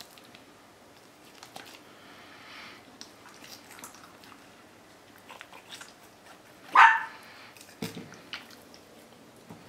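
A knife slicing open a pickerel's belly on a plastic cutting board, with faint crunching and scraping of the blade through skin and flesh. About seven seconds in, a dog barks once, short and loud.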